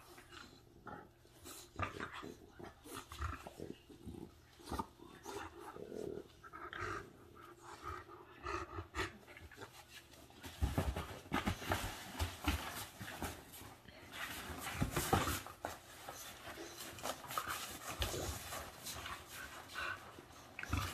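An English Bulldog puppy and an adult bulldog panting and breathing noisily as they play-wrestle, with short scuffles. It gets busier and louder about halfway through.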